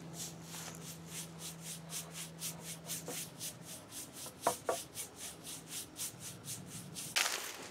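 Bristles of an old paintbrush scrubbing wood stain onto a sanded wooden walking stick in quick back-and-forth strokes, about four a second. A couple of light clicks come midway, and a louder scrub near the end.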